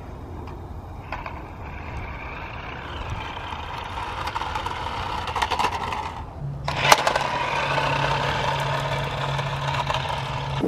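Small RC car's electric motor and gears whirring as it drives over concrete. There is a sharp click about seven seconds in, followed by a steady low hum.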